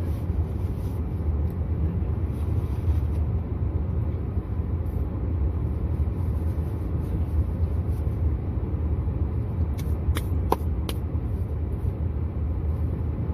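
Steady low rumble inside a car cabin with the engine running, with a few light clicks about ten seconds in.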